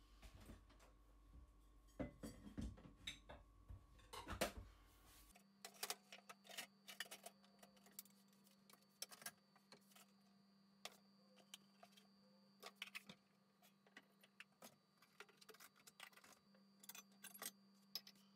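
Scattered light clinks and knocks of bowls and glasses being lifted from a dish rack and set down. Near the end, a steel bowl is set into a ceramic bowl.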